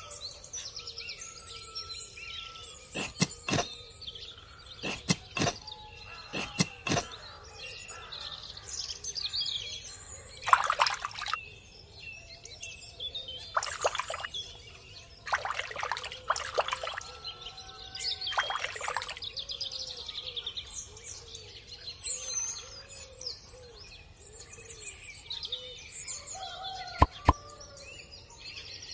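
Birds chirping and singing throughout. A few sharp clicks come a few seconds in, then water is poured from a small cup onto sand in several short splashes around the middle.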